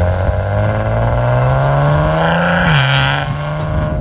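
Exhaust of a 2015 Maserati Ghibli S Q4's twin-turbo V6 on its stock exhaust in Sport Mode, rising steadily in pitch as the car accelerates. Near the end the pitch drops quickly and then holds, as the gearbox shifts up.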